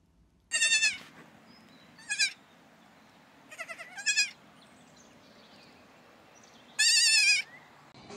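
Young goat kids bleating: a few short, wavering bleats, then a longer, loud bleat near the end.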